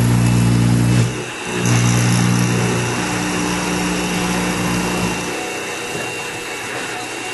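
X2 mini mill running with the end mill cutting the bracket: a steady motor hum that dips briefly about a second in, then drops away a little past five seconds in, leaving a fainter hiss.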